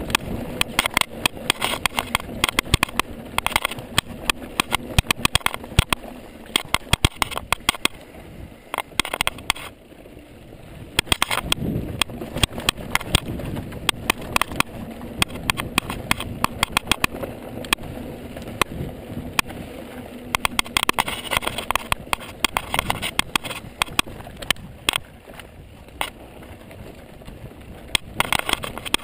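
Ibis Mojo HD mountain bike rattling as it rolls down a dry dirt trail: many rapid, irregular clicks and knocks from the bike going over bumps, over a steady rushing noise.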